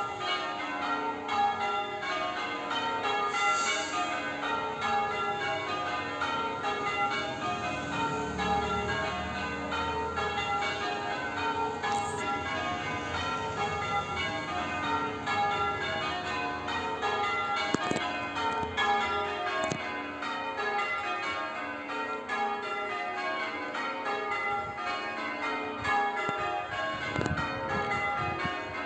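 Church tower bells change ringing: a ring of bells struck one after another in a quick, unbroken sequence, each row stepping down in pitch and the order of the strikes shifting from row to row.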